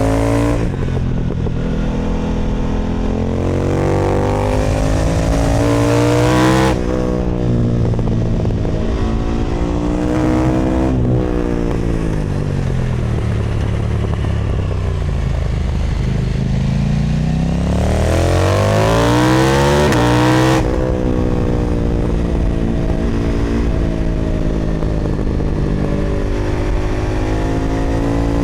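KTM Duke 990 engine through an Austin Racing exhaust, under way on the road, its revs climbing and falling. There is a sudden drop in pitch about seven seconds in and again about twenty seconds in, gear changes, with a long easing off in between and a fresh pull near the end.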